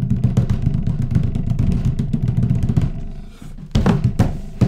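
Hands drumming rapidly on a wooden tabletop as a drum roll, a dense low patter that fades out about three seconds in, followed by two heavy thumps on the table near the end.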